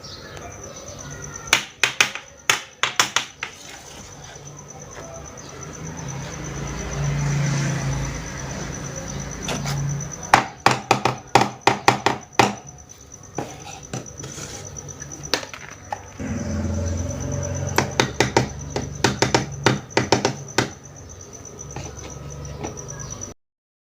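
Small plastic toy cookware and utensils clicking and tapping against each other as they are handled, in quick runs of sharp clicks, over a low steady hum; the sound cuts off suddenly near the end.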